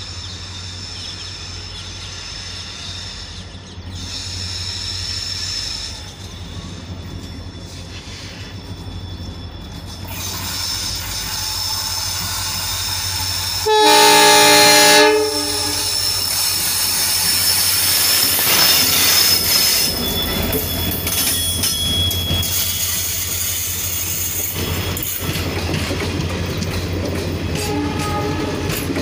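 A WDP4D diesel-electric locomotive, with its EMD two-stroke engine running, approaches and sounds one horn blast of about a second and a half, the loudest sound, about halfway through as it draws level. Its passenger coaches then rush past with wheels rumbling and clattering over the rails.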